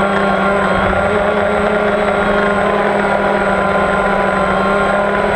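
Motors and propellers of an FPV model aircraft in flight: a steady, loud drone of several held tones that waver slightly in pitch, over a rough low rumble.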